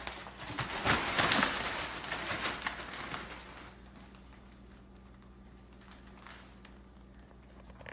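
Crinkly fabric of a collapsible cat play tunnel rustling as a cat moves through it, loud for the first three seconds or so and then dying down to faint scuffles.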